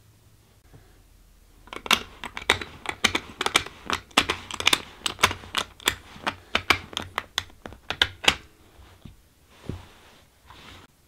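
Rapid, irregular sharp clicks of .223 rifle cartridges being pressed one after another into a polymer PMag rifle magazine, with a last single click a little later.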